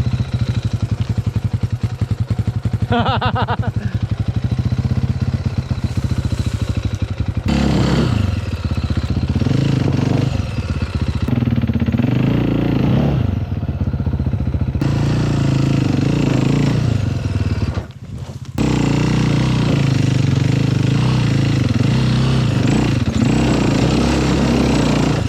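Four-stroke single-cylinder enduro dirt bike engines running: a steady hum for the first seven seconds or so, then revving up and down repeatedly. The sound changes abruptly several times.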